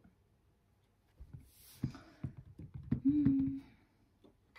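A run of light clicks and knocks from small objects being handled, with a brief hiss about a second and a half in. A short steady hum-like tone about three seconds in is the loudest part.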